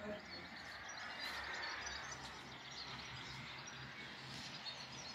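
Faint outdoor ambience: a steady wash of distant town noise with small birds chirping now and then.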